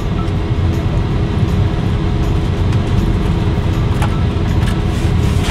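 Steady low rumble of car cabin noise, with a few faint light clicks about four seconds in.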